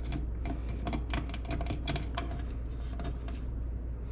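Utility knife point working through doubled nylon webbing on a wooden cutting board: an irregular run of light clicks and ticks, a few each second, over a steady low hum.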